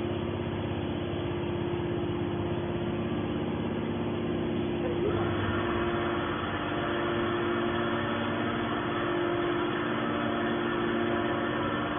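Hydraulic scrap-metal baler running, a steady machine hum with a constant low pitch. About five seconds in, a brighter, noisier layer joins in.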